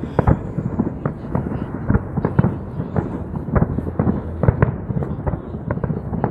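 Aerial fireworks bursting in a rapid, irregular string of bangs and crackles, several a second, over a steady low rumble.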